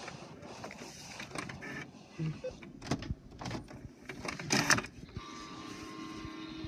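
All-in-one inkjet printer/scanner starting up after its start button is pressed: scattered clicks and knocks, the loudest about four and a half seconds in, then from about five seconds in a steady motor whine as the scanner runs.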